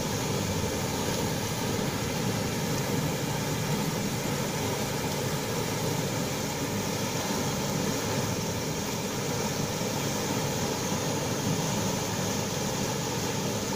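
Steady rushing of turbulent river water, an even noise with no pauses.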